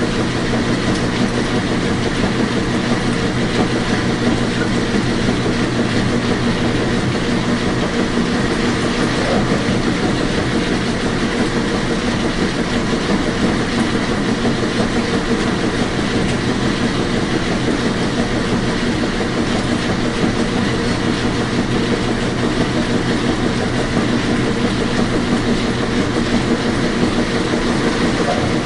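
Washing machine running steadily: a continuous, even rush of noise with a steady low motor hum underneath.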